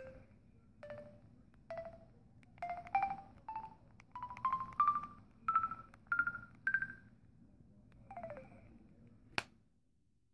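Samsung Smooth flip phone's keypad tones as the keys are pressed one after another: about a dozen short beeps, each a step higher in pitch than the last. Near the end comes a brief falling tone, then a sharp snap as the flip shuts.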